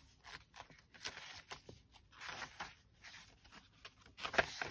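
Pages of a handmade paper junk journal being turned by hand: about five paper rustles and swishes, the loudest near the end.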